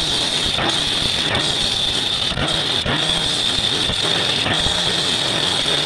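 Gas-powered cut-off saw running at full throttle, its diamond blade cutting through a concrete curb with a steady high-pitched whine.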